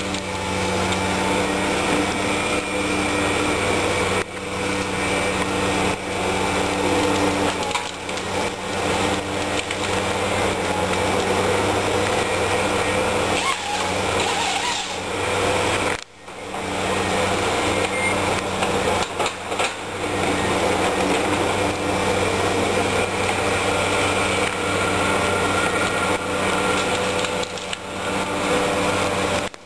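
A Ponsse wheeled forestry harvester's diesel engine runs steadily under the sound of its hydraulics as the crane and harvester head work. Now and then wood knocks and cracks as the head handles trees and brush.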